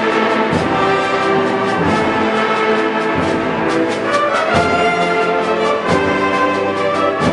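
Wind band music led by brass, sustained chords with regular low drum strokes underneath.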